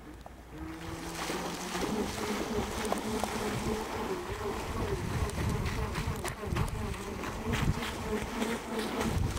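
Radio-controlled power boat's motor starting about half a second in and buzzing as the boat speeds across the water, its pitch wavering up and down as it runs.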